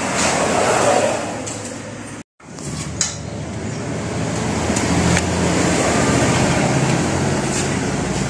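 Steady auto repair shop background noise, cut off briefly about two seconds in. Afterwards there are a few faint clicks and rustles as rubber-and-metal engine mounts are handled in their cardboard box.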